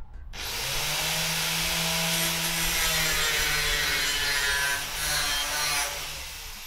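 A corded power tool running against the roller door's drum bracket. It gives a steady motor note with a hissing, rasping edge, dips briefly about five seconds in, and cuts off near the end.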